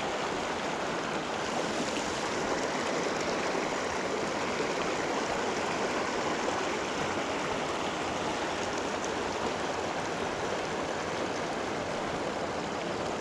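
River current rushing steadily through a shallow, rocky riffle: an even, unbroken wash of moving water.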